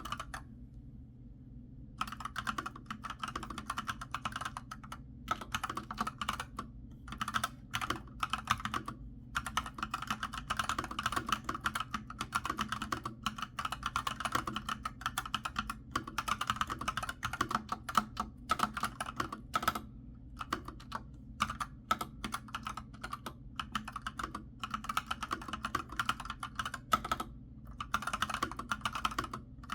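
Typing on a newly unboxed keyboard: rapid runs of key clicks with short pauses, starting about two seconds in.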